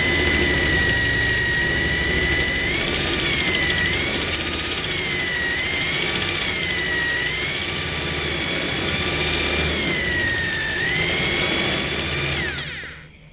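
Corded electric drill running a spot weld cutter into a plug weld in steel body panel, with a loud, steady high whine. From about three seconds in, its pitch sags and recovers several times as the cutter bites under load, then it winds down and stops near the end.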